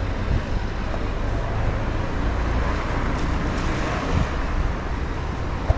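City street traffic noise, a steady wash of passing vehicles, with wind buffeting the microphone in a low rumble. A sharp knock near the end.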